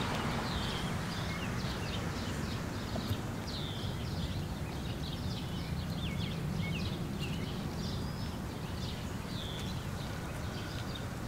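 Small birds chirping and whistling in many short, separate calls over a steady low background rumble.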